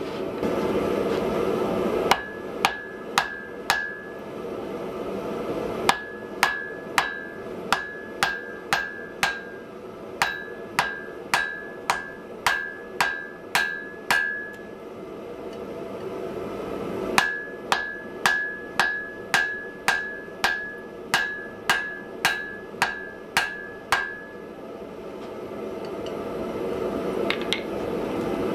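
Hand hammer striking a red-hot block of wrought iron on an anvil, each blow ringing out briefly from the anvil. The blows come in three runs of about two a second: a short run a couple of seconds in, a longer one from about six seconds, and another from about seventeen seconds. A steady rushing noise fills the pauses and swells toward the end.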